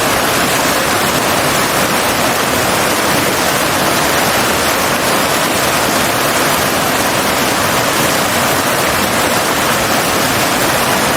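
Steady, dense rush of water, as from floodwater pouring or torrential rain, holding an even level throughout.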